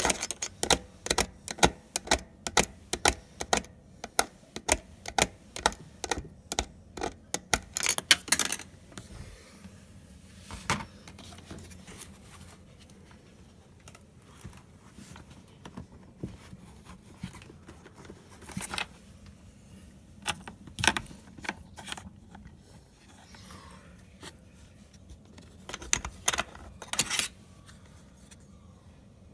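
Sharp metallic clicks and clatter from hand tools and metal parts being worked under a dishwasher. They come in quick succession, about two or three a second, for the first eight seconds, then in scattered bunches with quieter gaps.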